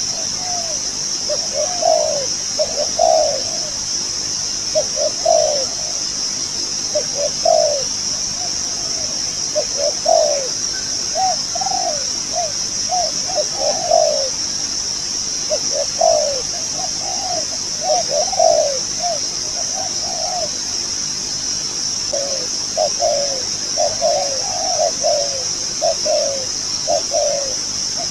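A decoy dove cooing again and again, short low phrases coming in clusters with brief gaps, over a steady high-pitched hiss.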